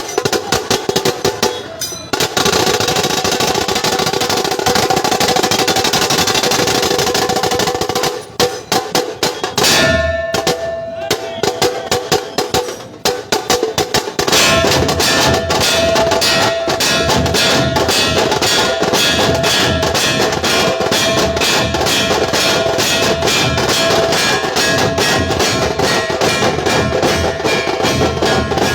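Dhol-tasha troupe drumming: fast, dense tasha strokes over dhol beats. The rhythm breaks off briefly about two seconds in and goes uneven for several seconds in the middle before settling into a steady, fast beat.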